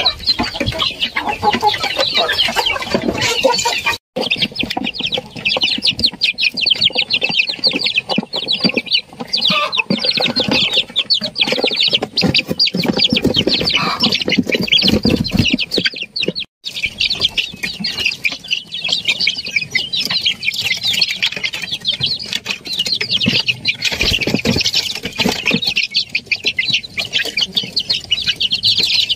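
Flock of kampung chickens: many chicks peeping constantly in high, rapid calls, with lower clucking mixed in. The sound breaks off for a moment twice.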